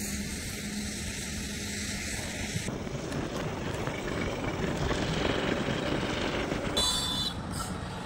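Steady road noise of a vehicle travelling along a road, heard from on board. The noise shifts in character about three seconds in, and a brief high-pitched tone sounds near the end.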